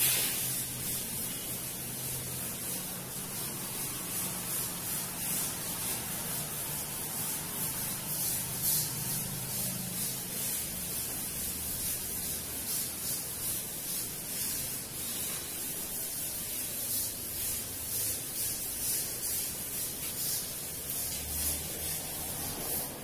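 A duster wiping chalk off a chalkboard: repeated rubbing strokes, a steady hiss that pulses with each stroke.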